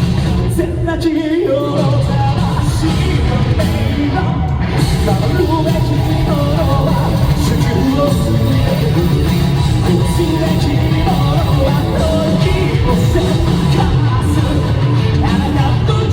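A rock band playing live at full volume, with distorted guitar and a male lead singer singing over it, in a large hall.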